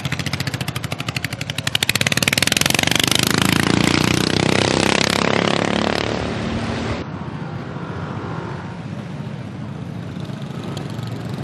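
Racing lawnmower engines running hard at high revs close by, a fast buzzing beat; the sound drops off sharply about seven seconds in, leaving a quieter engine drone.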